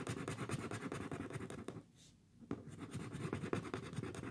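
Red marker scribbling rapidly back and forth on a paper worksheet, coloring in a shape, with a short pause about halfway through.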